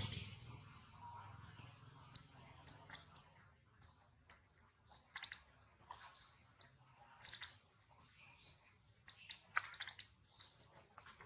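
Faint, sharp clicks and ticks coming in irregular clusters of two to six, with quiet gaps between, over a faint steady high hum.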